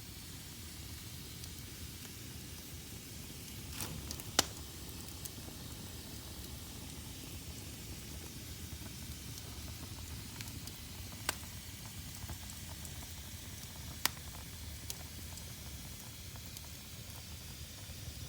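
Fire burning in a fireplace: a steady hiss with scattered small crackles and three sharp pops, the loudest about four seconds in.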